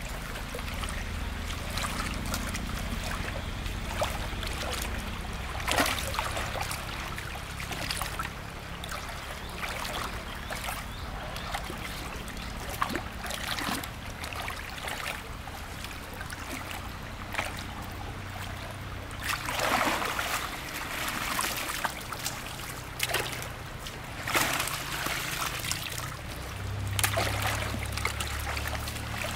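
Water trickling and splashing in irregular bursts, busiest about two-thirds of the way through, over a steady low motor hum from the water pump.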